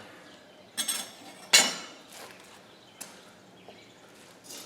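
Metal-on-metal clanks as hot casting gear is handled: a few clinks about a second in, then one loud sharp clank with a short ring, and lighter ticks after it.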